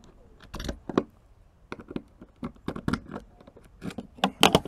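Caravan fresh-water filler cap and its plastic flap being handled with a key: a series of small clicks and scrapes, with the loudest few clicks near the end.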